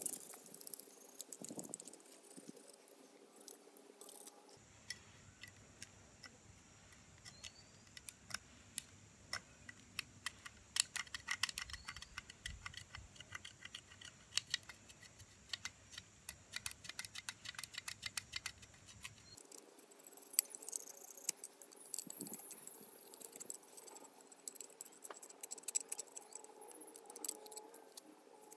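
Irregular light metallic clicks, taps and rattles from hand tools working a small brass piece.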